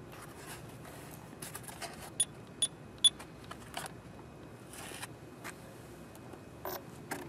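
Handling noise: scattered light clicks and knocks, with three sharp clicks between about two and three seconds in.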